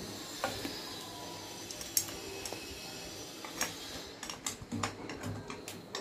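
Scattered light clicks and clinks of utensils against dishes while curry is being served, coming faster a little past the middle.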